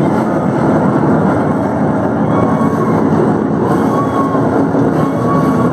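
Loud, steady din of a large crowd, many voices blending into one continuous noise.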